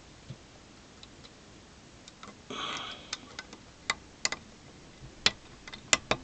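Small irregular clicks and a brief scraping rustle from fingers handling a transistor and its wire leads while swapping it into a hand-wired preamp circuit.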